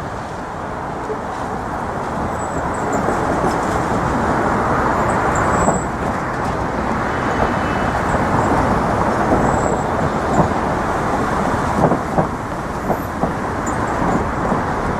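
Steady road traffic noise from cars on the Brooklyn Bridge roadway, a continuous rush with a few short knocks in the second half.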